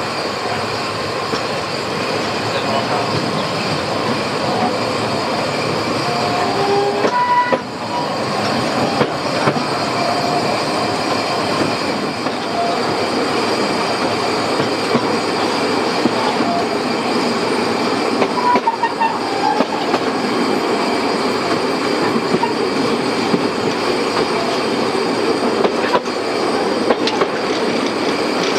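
750 mm narrow-gauge train running, its carriage wheels rumbling and clattering steadily on the rails, with short squeals from the wheels twice.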